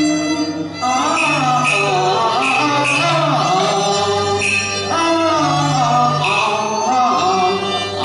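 Cantonese opera (yueqiu) music: the accompanying ensemble playing a wavering melody over held low notes.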